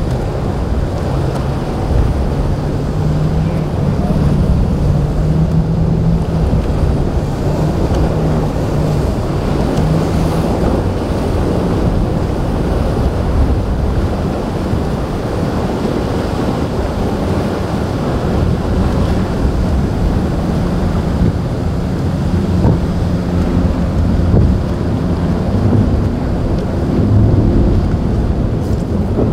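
Heavy wind buffeting the microphone over breaking surf, with a boat engine's low drone wavering through it as the SAY 42 sport boat runs through rough, breaking waves.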